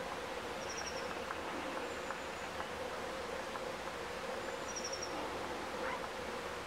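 A steady background hiss with a constant low hum. Two short, high, rapid runs of a few chirping notes from a small bird come about half a second and five seconds in, with a couple of faint thin whistles between them.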